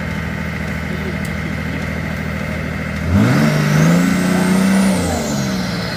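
Off-road 4WD competition truck's engine idling, then revved up about three seconds in and held for about two seconds before dropping back to idle. A high whine climbs and falls with the revs.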